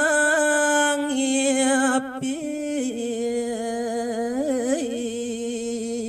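A man singing a Balinese geguritan verse in pupuh Ginada, unaccompanied, in long held notes with wavering ornaments. The pitch steps down a little about halfway through.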